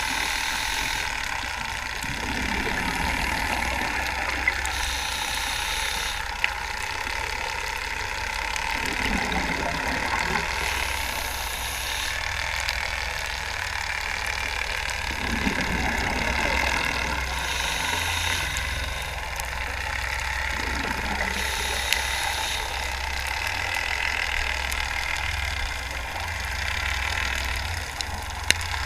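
Scuba diver breathing through a regulator underwater: a hissing inhale and a rush of exhaled bubbles, repeating about every five to six seconds over a steady low rumble.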